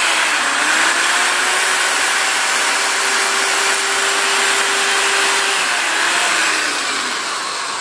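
Power drill spinning a wire brush against a motorcycle piston crown, scrubbing off carbon deposits with a steady whirring and rasping. The motor's pitch climbs about a second in, holds, then sinks as the drill slows near the end.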